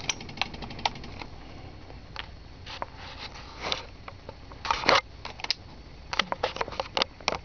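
Irregular clicks and knocks from handling as a digital multimeter is moved and held up, with a loud cluster about five seconds in, over a faint steady low hum.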